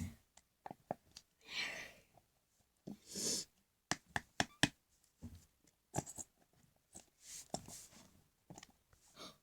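A plastic glue bottle being squeezed out and handled: scattered clicks and taps with a few short sputtering squirts as the last of the glue and air are forced out.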